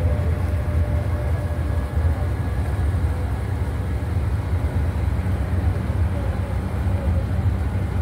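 A motorboat's engine running at a steady low rumble, heard from on board while the boat moves through the water, with a rush of water and wind over it.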